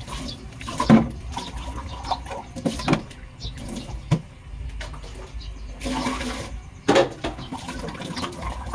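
Water splashing and sloshing on a sink counter as it is scrubbed and rinsed by hand, with several sharp knocks of things set down on the counter.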